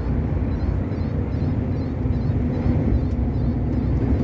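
Truck's engine and tyres running steadily at road speed: a constant low rumble with a faint steady hum, heard from inside the cab.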